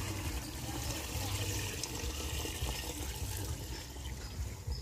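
Cooking oil poured from an aluminium pot into a metal kettle: a steady trickling pour that thins out over the last second or two as the pot drains.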